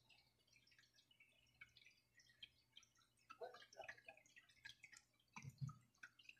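Near silence with faint small wet clicks and ticks from thin cucumber slices being handled and folded by hand, and two soft low knocks about five and a half seconds in.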